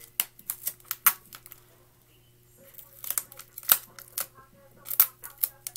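Irregular sharp clicks and crinkles of paper being handled, in two clusters, the first just after the start and the second from about three to five and a half seconds in.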